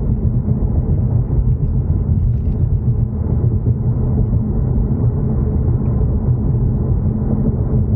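Ford Mustang EcoBoost on the move: a steady low rumble of wind and road noise, as picked up by a camera strapped to the outside of the car.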